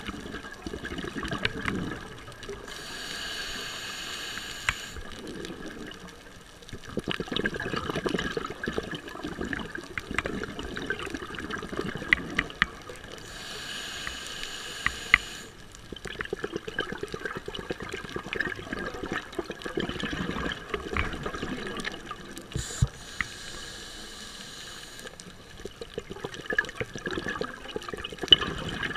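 Scuba diver breathing through a regulator underwater: a hissing inhale about every ten seconds, three in all, each followed by several seconds of bubbling as the exhaled air escapes. Sharp clicks and crackles run throughout.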